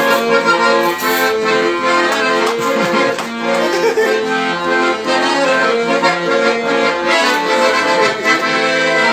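Piano accordion playing an instrumental passage, held chords under a moving melody, with no voice.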